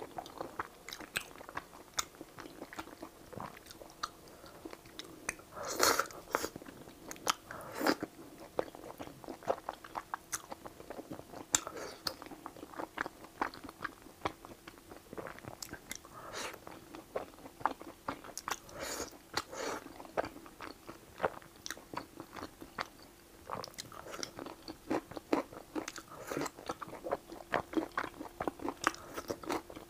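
Close-miked eating: chewing and biting of spicy stir-fried rice noodles with celery, with many short wet clicks and crunches and a few longer, louder mouthfuls. A faint steady hum runs underneath.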